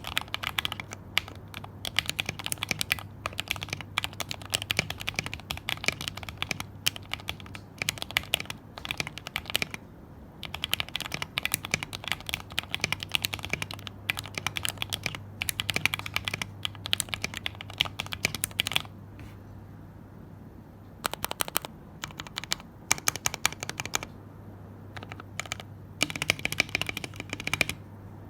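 Typing on a mechanical keyboard with Krytox-lubed Gateron Yellow linear switches and PBT keycaps in a Tofu 60% case: fast runs of keystrokes, broken by a pause of about two seconds a little past the middle.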